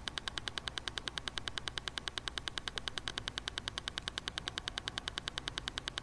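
Steady, rapid electronic ticking pulse, about eight even clicks a second, the background beat of a Silva Method guided-meditation track, over a faint low hum.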